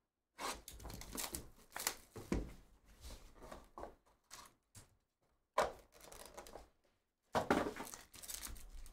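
Paper and foil packaging of a sports-card hobby box being torn and handled: a run of short crinkling, tearing rustles as the box is opened and its foil card pack pulled out, with the loudest crinkling tear about seven seconds in as the foil pack is handled.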